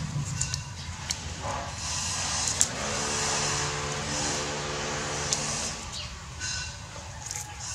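Leafy vine shoots rustling, with a few sharp snaps as leaves are picked off the stems. A motor vehicle engine passes in the background from about three to six seconds in.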